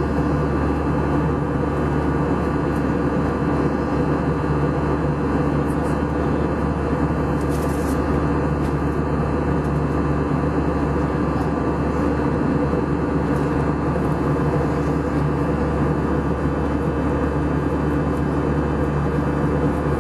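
Jet airliner cabin noise in flight: a steady, unchanging drone of engines and rushing air heard from inside the cabin, with a few steady low hums running through it.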